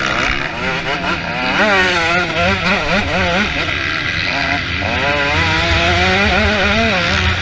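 Motocross bikes racing, their engines rising and falling in pitch as the throttle is opened and closed, with several bikes heard at once.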